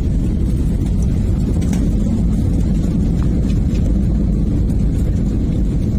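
Airliner cabin noise during the landing roll on the runway: a steady low rumble of engines and wheels, heard from inside the cabin.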